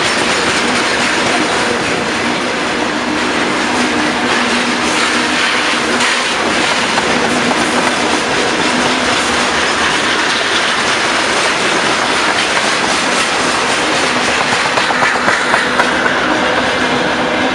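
Freight train of railway tank cars rolling past close by: a steady loud rumble with the wheels clattering over the rail joints and faint wheel squeal at times.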